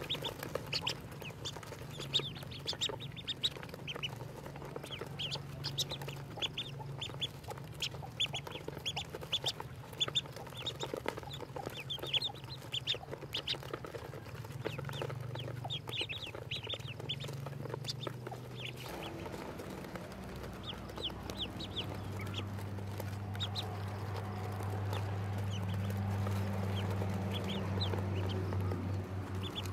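A brood of young ducklings peeping: many short, high peeps in quick succession that thin out about two-thirds of the way through. A low steady hum runs underneath and shifts about two-thirds of the way in.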